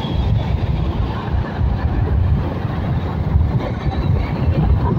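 Steady low rumble of a vehicle on the move, with no speech.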